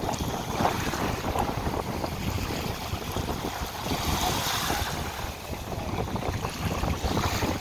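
Wind buffeting the microphone over small waves lapping and washing up the sand at the water's edge, with a wave wash swelling about four seconds in.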